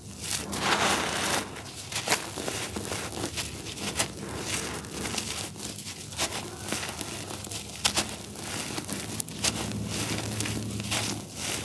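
Dry, grainy charcoal cakes crumbling and crushing in the fingers, powder and grit sifting down onto a powdery floor. A steady gritty crackle with sharper snaps every second or two.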